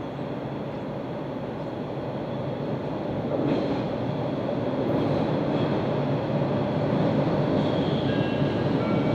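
MBTA subway train approaching on the rails, its rumble growing steadily louder, with a few faint, brief wheel squeals near the end.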